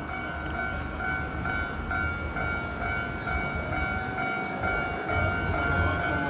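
Japanese level crossing's electronic warning bell ringing in its repeating "kan-kan" rhythm, over the low rumble of a Hankyu train passing over the crossing.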